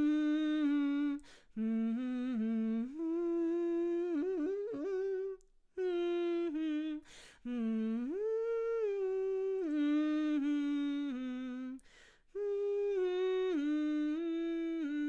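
A woman humming a melody with her lips closed, held notes stepping up and down in several phrases with quick breaths between them. This is the hum stage of a vocal exercise, used after lip rolls to feel the resonance and placement shift.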